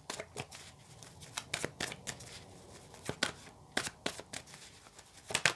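A deck of tarot cards being shuffled by hand: a run of irregular, quick card slaps and flicks, with a louder flurry near the end.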